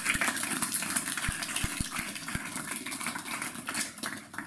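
Audience applauding; the clapping dies away near the end.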